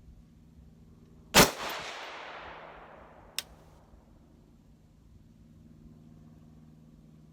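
A single shot from a 5.56 mm Mk12 Mod 1 clone rifle, with a long echoing tail that fades over about two seconds. A short sharp click follows about two seconds after the shot.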